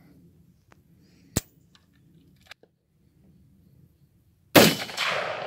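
One gunshot from an AR-15 pistol near the end, loud and sharp with a long echo trailing after it, fired as a test while its adjustable gas block is being tuned. About a second and a half in there is a single sharp click, with a few faint ticks around it.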